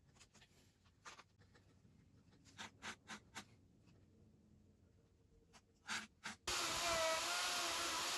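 Faint scratching of a marking gauge and marking knife scoring layout lines into a hardwood rail, with a few light clicks. About six and a half seconds in, a Makita plunge router cuts in suddenly, running loud and steady with a whine that wavers in pitch as the bit cuts into the hardwood.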